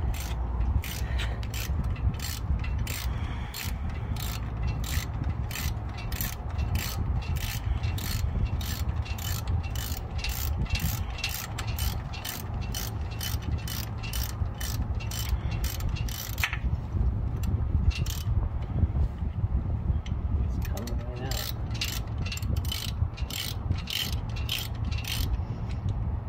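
Hand ratchet wrench clicking steadily, about two to three clicks a second, as it backs out a transmission bell-housing bolt. It pauses twice before starting again, over a steady low rumble.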